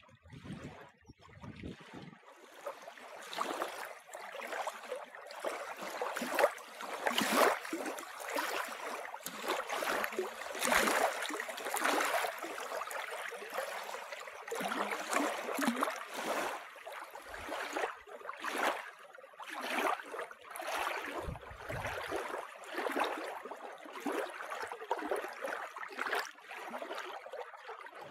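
Small lake waves lapping and splashing on a sandy shore and stones, in irregular washes that swell and fall every second or so. It begins softly and becomes steady about two seconds in.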